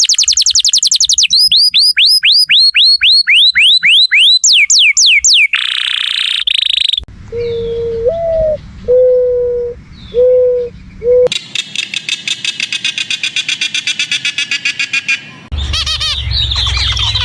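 A run of different animal calls, mostly bird-like. First come rapid whistled notes, each sliding downward, repeated many times. Then a short harsh burst, several low hooting notes, and a fast chattering trill.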